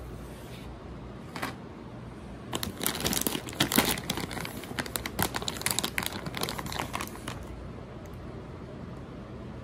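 Plastic packaging crinkling as it is handled: a single crinkle about a second in, then a dense run of crackling for about five seconds.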